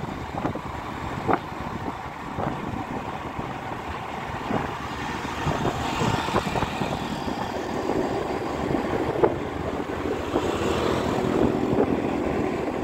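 Steady road and traffic noise from moving vehicles, with a couple of sharp knocks.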